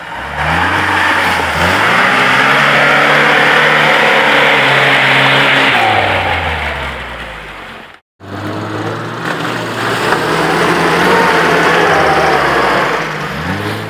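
Off-road 4x4 engines revving hard with the wheels spinning in mud: a Lada Niva revs up, holds at high revs and then drops back. After a sudden cut about eight seconds in, a UAZ-469 runs at high revs throwing mud and drops off near the end.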